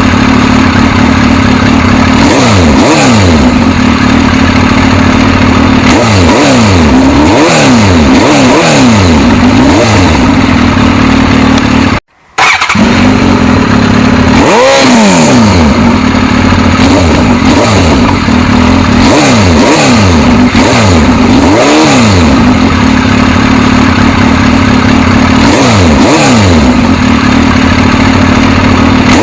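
Suzuki GSX-S1000's inline-four engine revving over and over, its pitch rising and falling every second or two over a steady drone. The sound cuts out briefly about twelve seconds in.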